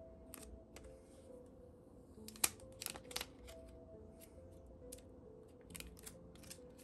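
Thin plastic protective film being peeled off a smartphone's front, giving scattered sharp crackles and clicks, the loudest cluster about two and a half seconds in and a few more near the end. Soft background music runs underneath.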